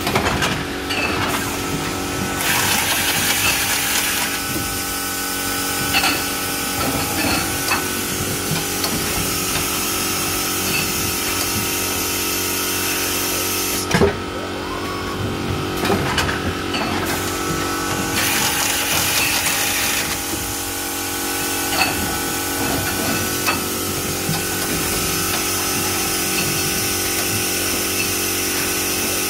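Mondo & Scaglione F.I.I.N.1 case-packing machine running: a steady mechanical hum with several held tones, long stretches of hiss, and scattered clacks and knocks from its mechanism, the sharpest about halfway through.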